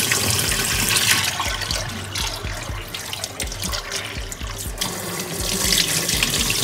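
Kitchen tap running into a glass bowl of yellow lentils (toor dal) in a stainless steel sink as the lentils are rinsed, swirled by hand and the rinse water tipped off. The water sound is louder near the start and near the end.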